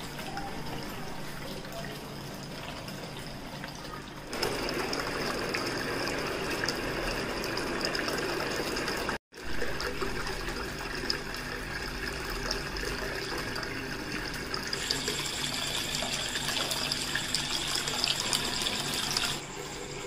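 Water from a small tabletop waterfall fountain splashing and trickling steadily as it pours from two tiered bowls into a pebble-filled basin. It gets a little louder about four seconds in and cuts out for a split second about nine seconds in.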